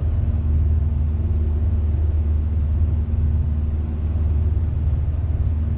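Steady low rumble of a car's engine and tyres on the road, heard from inside the cabin, with a faint even hum over it.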